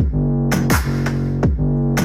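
Electronic dance music played loud through a Zealot S98 Bluetooth speaker: deep kick drums that drop in pitch hit over a held bass line.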